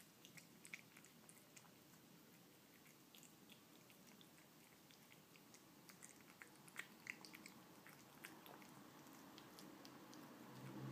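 Faint, irregular wet clicks and smacks of a kitten chewing and licking canned cat food from a dish, thinning out near the end.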